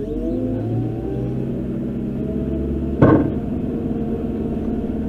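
JCB 535 telehandler's diesel engine revving up, heard from inside the cab. Its pitch rises over the first second or so, then it runs steadily. A single loud knock comes about three seconds in.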